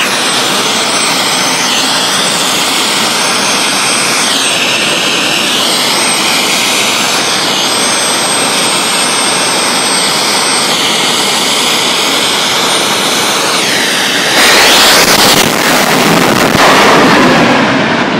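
Jet dragster's turbine engine running at the starting line: a loud, steady roar with a high whine that dips and rises in pitch. About fourteen seconds in the sound jumps suddenly louder and fuller.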